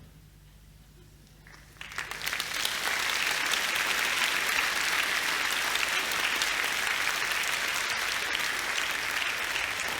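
Audience applauding in a hall, the clapping starting about two seconds in, quickly building and then holding steady.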